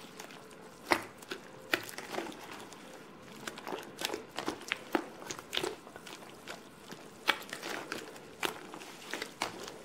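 Wet, sticky glue slime being kneaded and squeezed by hand in a plastic bowl, with water being worked in: irregular squelches and small wet pops and clicks.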